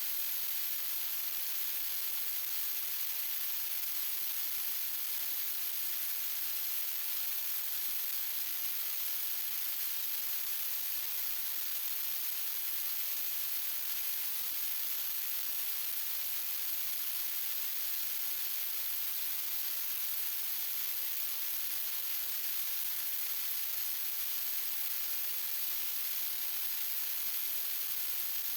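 Steady, even hiss like static that never changes, with no saw running, no cutting and no other event.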